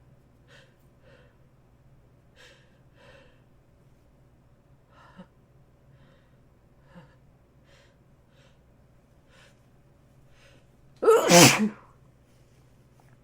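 A person takes short, quiet breaths at uneven intervals, then gives one loud sneeze about eleven seconds in.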